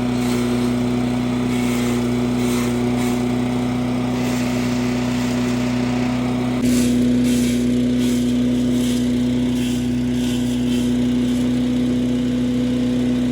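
Champion 338 cc gas-powered wood chipper shredder running steadily with a constant engine hum, with short crackles of brush going through it. The sound steps slightly louder about halfway through.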